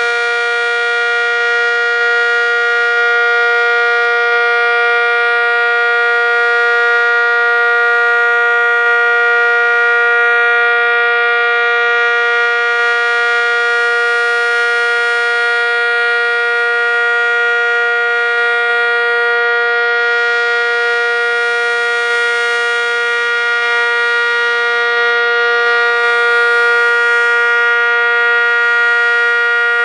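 ACA Cyclone dual-tone outdoor warning siren sounding a steady chord with its top cover missing. Its pitch holds level while the higher part of the sound swells and fades slowly every several seconds.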